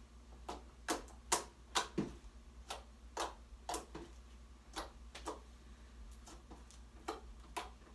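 Freshly made slime being poked and pressed by hand, giving a string of short, sharp clicks and pops, about two a second at irregular spacing.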